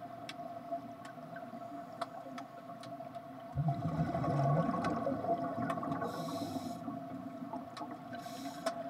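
Aquarium ambience beside a large kelp forest tank: a steady low hum with water gurgling, two short hissy rushes like bubbling, and scattered faint clicks.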